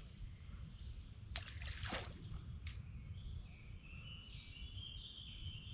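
Outdoor ambience: a steady low rumble with birds chirping faintly, and a few brief clicks about one and a half to two seconds in.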